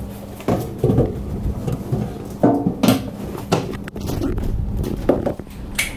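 A galvanised-steel toolbox lid being lowered and shut, with a run of separate metallic knocks and clunks spread over several seconds.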